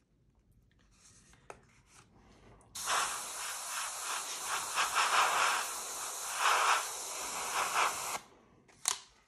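Gravity-feed airbrush spraying paint along a post-it note mask, a steady hiss that starts about three seconds in and stops about a second before the end, swelling and easing as the trigger is worked. A short burst of hiss follows just before the end.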